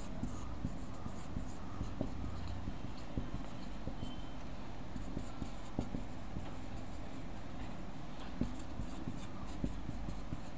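Dry-erase marker writing on a whiteboard: many short squeaks and small taps as the strokes are drawn, over a low steady room hum.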